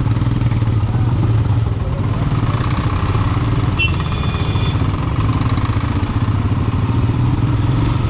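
Motorcycle engine running steadily under way, with a short high-pitched tone about four seconds in.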